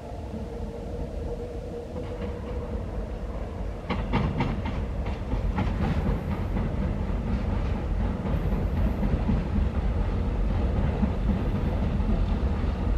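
Seoul Subway Line 4 train running on the track with a low rumble that grows louder, its wheels clacking over rail joints in a quick run of clicks from about four seconds in.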